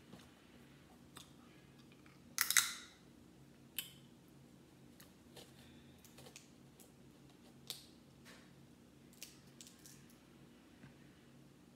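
Shells of boiled shellfish being cracked and peeled by hand: scattered sharp cracks and clicks, the loudest a short crackling snap about two and a half seconds in, over a faint steady low hum.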